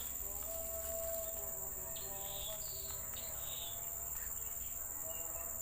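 Rainforest insect chorus: a steady high-pitched drone of crickets, with a few short higher calls scattered through it.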